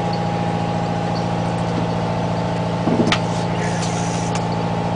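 Fishing boat's engine running with a steady low drone, with a brief click about three seconds in.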